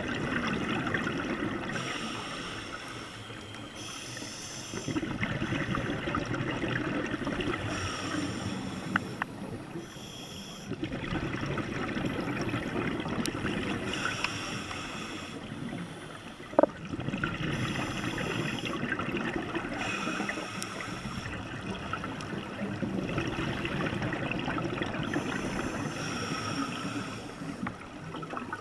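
A scuba diver breathing through a regulator, heard underwater: about five slow breaths, each a short hiss on the inhale followed by a few seconds of rushing exhaled bubbles. A single sharp click comes a little past halfway.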